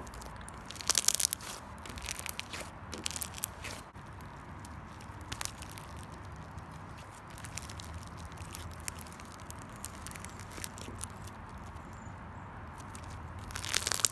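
Orange slime studded with small beads being kneaded, stretched and pressed by hand, giving clusters of crackling pops and crunches, loudest about a second in and again near the end.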